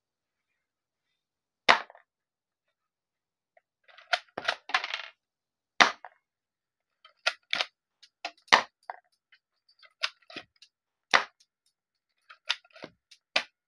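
Toy shell-ejecting Glock pistol being worked and fired: a string of sharp plastic snaps and clacks, irregularly spaced, with a short rattling cluster about four seconds in.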